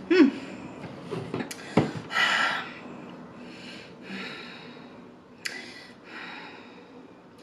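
Close-up breathing through the nose and mouth: a brief hum at the start, a few small clicks, then a run of audible breaths.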